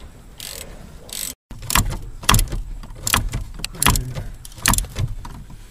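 Socket ratchet clicking in short strokes, about five sharp ones just under a second apart after a brief dropout, as the vacuum brake booster's mounting nuts are backed off under the dash.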